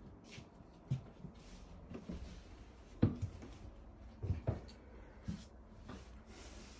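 Footsteps climbing painted wooden stairs: irregular dull thuds about a second apart, the loudest about three seconds in and two close together a little after four seconds.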